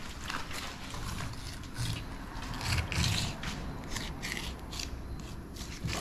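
A knife sawing and scraping through the skin and flesh of a large oilfish (walu): a run of irregular rasping strokes.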